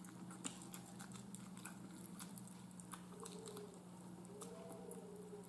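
Close-up chewing of smoked turkey leg meat, quiet, with scattered small mouth clicks over a steady low hum.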